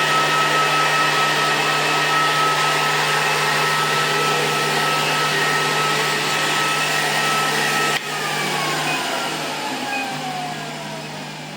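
Cooling fan of an IPL laser hair-removal device running steadily with a rushing air noise and a high whine. About eight seconds in the power is cut and the fan spins down, its whine falling in pitch as it slows.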